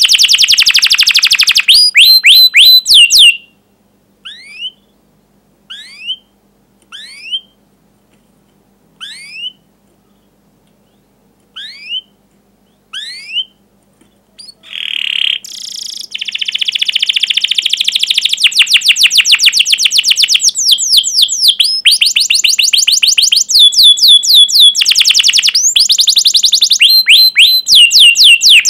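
Domestic canary singing: rapid rolling trills of fast sweeping notes, which break off after about three seconds into single sharp rising 'cuit' chirps spaced a second or so apart. About halfway through it launches back into long, continuous rolling song that runs on loud and fast.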